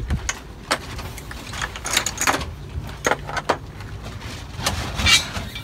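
Metal clinks and knocks of a 19 mm socket wrench being picked up and handled among engine parts, a string of separate short strikes with the loudest about five seconds in.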